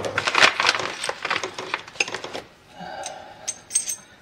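Hand tools and steel mounting hardware clinking and rattling in quick, irregular taps as a rear lever-type shock absorber is bolted to a 1948 Chevrolet's frame. The taps thin out after about two and a half seconds, with a short scrape and then a few sharper, ringing metal clicks near the end.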